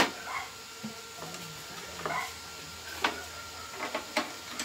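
Wires and small metal parts being handled inside an opened microwave oven. A sharp click at the very start is followed by scattered lighter clicks and taps, with a little cluster of them near the end. A faint steady high tone sits underneath.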